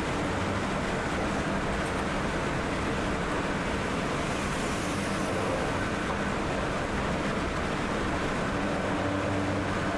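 Steady engine and road noise of a coach bus heard from inside the cabin while it drives along a highway, with a low, even hum underneath.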